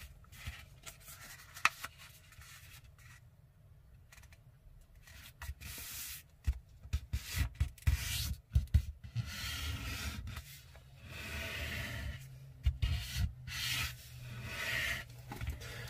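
A sheet of letter-size paper being folded by hand on a table: the paper slides and rustles as fingers press it flat and run along the creases, with a few sharp taps. Fainter for the first few seconds, then busier from about five seconds in.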